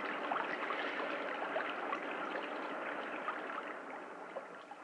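Faint running water, a soft steady trickle with small scattered drip-like ticks, fading down near the end.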